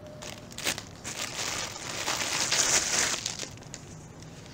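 Clear plastic bag crinkling as a pair of leather motorcycle gloves is pulled out of it: a short rustle, then a longer, louder stretch of crinkling that dies away near the end.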